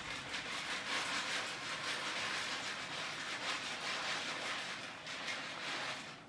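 Dry macaroni pouring from a cardboard box into a pot: a steady rattling stream of tiny clicks that thins out near the end.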